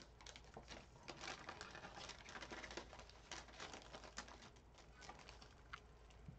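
Faint, irregular light clicks and rustles of trading cards being handled.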